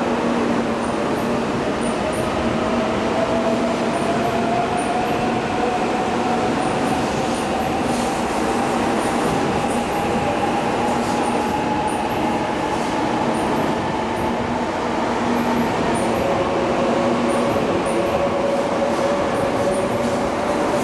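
Shinkansen bullet train pulling out along the platform. Its traction motors whine over steady rolling noise, rising in pitch through the first half as the train gathers speed, then a lower whine takes over near the end.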